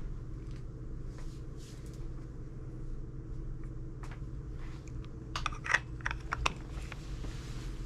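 Clicks of a camera body being handled as a round cap is fitted to its lens mount: a short cluster of sharp clicks a little past the middle, over a steady low hum.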